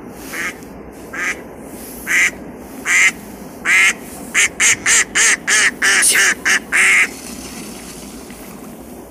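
Live decoy duck, a mallard-type hen, quacking loudly: about five spaced quacks, then a fast run of about ten that stops about seven seconds in, calling to wild ducks.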